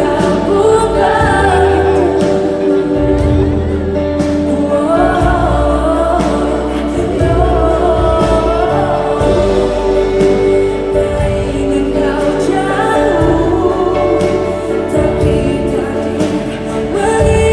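Live concert performance of a pop ballad: singing over a full orchestral accompaniment, with held chords, gliding vocal lines and deep bass notes.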